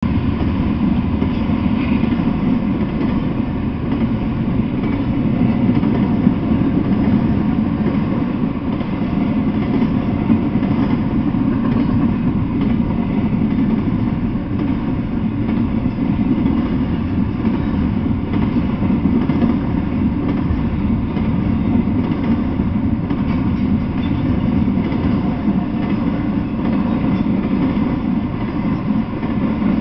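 Intermodal freight train rolling past, its flatcars and well cars loaded with trailers and containers, the wheels on the rails making a loud, steady rumble.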